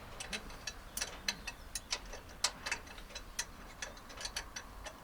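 Irregular sharp metallic clicks and clinks, several a second, from hand tools refitting the nut that holds the tank's fan drive in gear.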